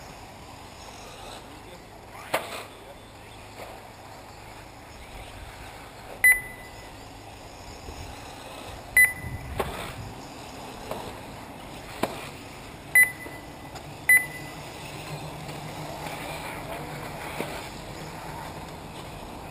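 Four short electronic beeps, each a single high tone, come at uneven gaps a second to four seconds apart, typical of a race lap-counting system marking cars crossing the timing line. A few sharp knocks, the first the loudest, and steady outdoor background noise run underneath.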